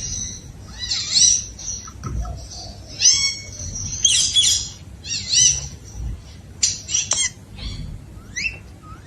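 Pet parrot calling in a string of short, high-pitched squawks and chatters, coming in bunches every second or so.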